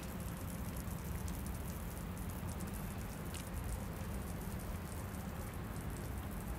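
Faint, steady outdoor background noise, mostly a low rumble, with light scattered ticks.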